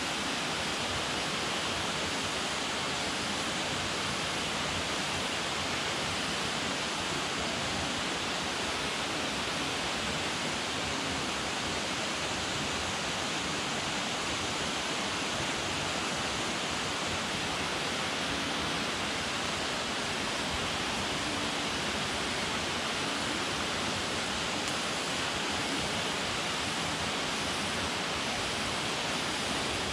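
Waterfall: steady rush of falling water, unchanging throughout.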